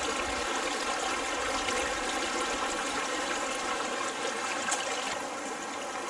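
Shallow stream water trickling and splashing over stones, a steady rushing hiss that gets a little softer about five seconds in.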